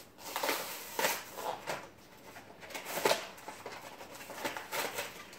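Clear plastic blister packaging and its cardboard backing being handled and pulled open, crinkling and rustling in irregular bursts of crackle.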